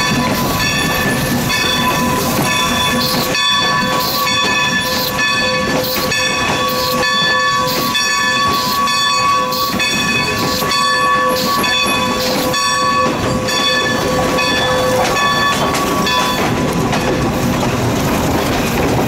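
Strasburg Rail Road No. 90, a 2-10-0 Decapod steam locomotive, working with an even rhythmic beat of about one and a half pulses a second over a steady hiss. A steady tone runs under the beat and stops about three-quarters of the way through.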